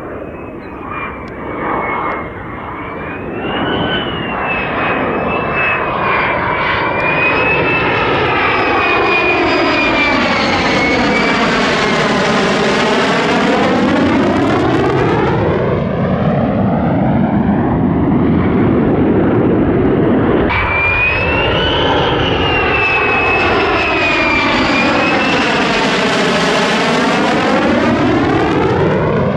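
Lockheed Martin F-35A Lightning II fighter jet flying past. Its single Pratt & Whitney F135 turbofan gives a loud, steady roar with a high whine that wavers in pitch. The sound sweeps hollow and phasey as the jet passes overhead. An abrupt cut about two-thirds of the way in leads into a second pass with the same rise and sweep.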